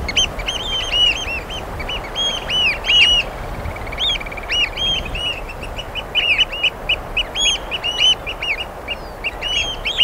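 Several Eurasian oystercatchers calling: a dense, continuous run of high, arched piping notes, many overlapping, over a steady background hiss.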